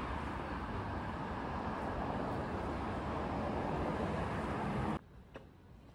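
Steady rumbling noise that cuts off abruptly about five seconds in, leaving a much quieter background.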